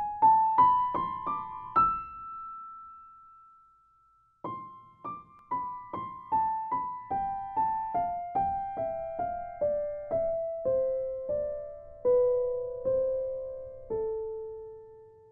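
Solo piano music: a quick rising run of single notes ending on a held high note, a pause of about two seconds, then a slow falling line of single notes, about two a second, that ends on a held low note.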